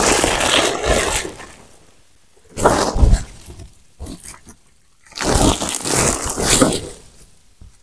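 Rustling and scraping of a woven plastic sack of manure being handled in three loud bursts, with a dull thump about three seconds in.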